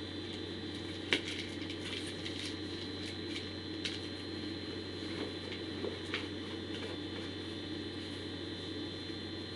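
A few sharp clicks and light knocks from items being handled in a cardboard shipping box, the loudest about a second in, over a steady electrical hum and hiss.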